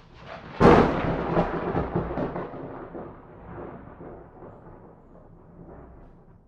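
Thunderclap: a sudden sharp crack about half a second in, then a long rolling rumble that slowly dies away over several seconds.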